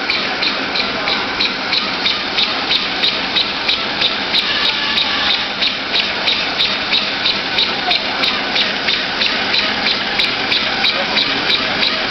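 SP-SNZ800 chocolate double-twist wrapping machine running, its mechanism clicking in an even, rapid rhythm of about four beats a second over a steady mechanical clatter.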